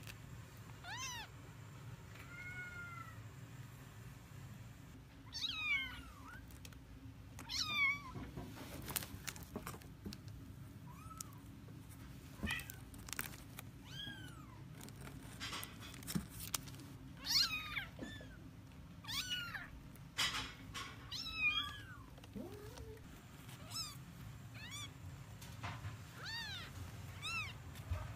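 Very young Bengal kittens mewing while they are handled and lifted: many short, thin, high-pitched mews that rise and fall, coming every second or two and sometimes overlapping.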